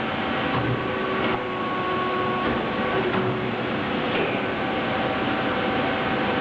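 An automatic-feed high-frequency plastic welding machine running with steady mechanical noise, a few faint steady tones and occasional short clicks as it cycles.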